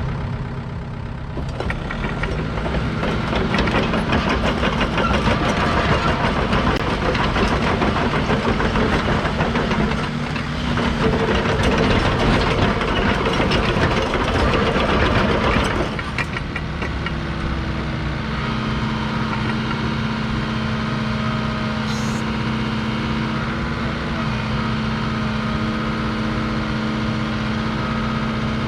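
2008 Hitachi ZX85USBLC-3 excavator's diesel engine running at raised revs, with a brief dip about ten seconds in. About sixteen seconds in it drops to a steady idle.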